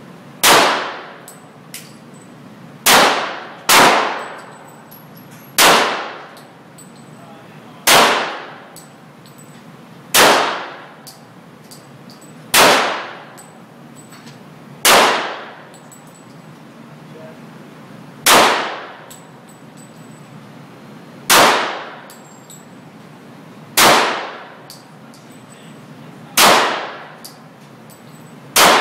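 Single gunshots fired at a slow, deliberate pace, about thirteen shots two to three seconds apart, each sharp crack followed by a short ringing tail.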